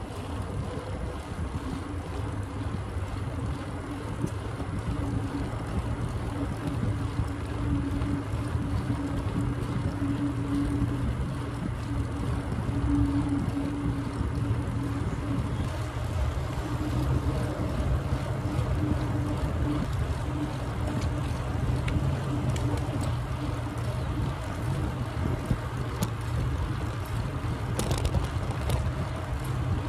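Wind rushing over the microphone and tyre noise from a Trek Marlin 6 mountain bike rolling along the trail. A steady hum runs under it and shifts higher about halfway through.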